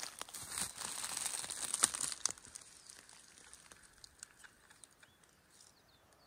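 Crackling, crunching rustle of many small clicks for about two seconds, then fading away. A few faint high chirps come near the end.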